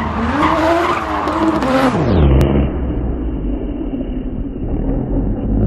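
Drift car's engine revving up and down with tyre noise as it slides sideways. About two seconds in the sound turns abruptly muffled, leaving a lower, steadier engine rumble.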